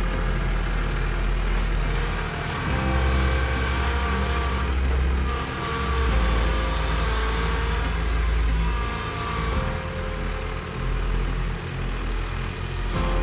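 Kubota B2261 compact tractor's three-cylinder diesel engine running under load while the tractor works its front loader. The engine note swells and eases over several seconds.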